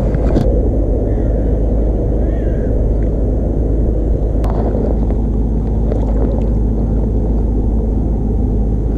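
A loud, steady low rumble, with a sharp click about half a second in and another about four and a half seconds in.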